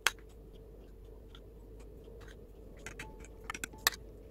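Metal spoon clicking and tapping against the sauce bowl and glass dessert cups as a creamy sauce is spooned out: a sharp click at the start, then scattered light ticks, bunched about three to four seconds in, over a faint steady hum.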